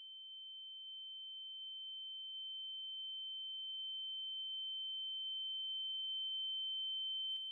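A single steady, high-pitched electronic tone, like a pure sine wave, slowly growing louder, with a click near the end as it drops away.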